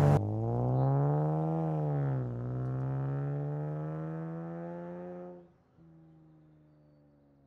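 Car engine revving: the pitch climbs for about a second and a half, dips, then slowly climbs again. About five and a half seconds in it falls away sharply to a faint steady hum, which cuts off at the end.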